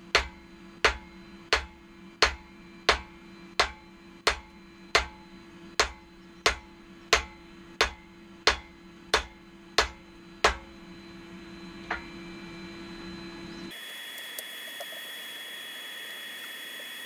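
Hand hammer striking a red-hot steel knife blank on an anvil: about sixteen sharp, evenly paced blows, roughly three every two seconds, stopping about ten seconds in, with one more blow a little later. A steady hum runs underneath, and near the end it gives way abruptly to a steady hiss with a high whine.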